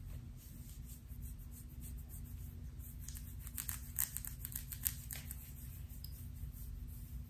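Long fingernails scratching through short hair on a scalp: many quick, crisp scratches, thickest in a flurry about three to five seconds in, over a low steady hum.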